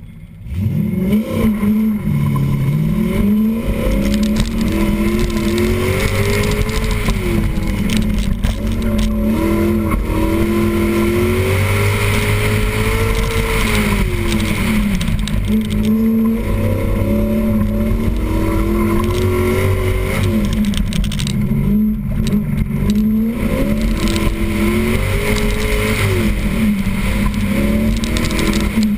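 Corvette's Chevrolet LT4 5.7-litre V8 launching hard from a standstill about half a second in, then revving up and falling back again and again as the car accelerates and slows between cones on an autocross run.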